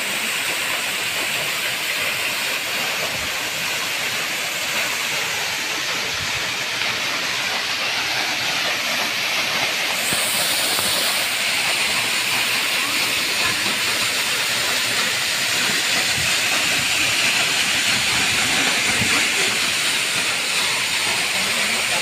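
Waterfall plunging down a rock face onto boulders and into a shallow pool: a steady rush of falling water, a little louder after about ten seconds.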